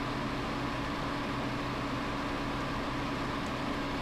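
Steady hum and hiss of a running machine, even and unchanging, with no other sound standing out.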